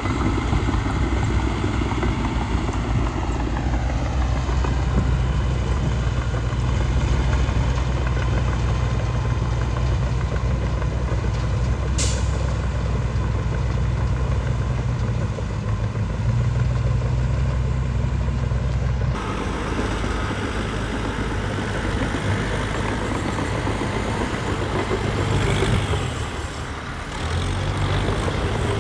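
Heavy diesel earthmoving machinery running steadily with a deep engine note. There is a single sharp click about twelve seconds in, and the sound changes abruptly about two-thirds of the way through.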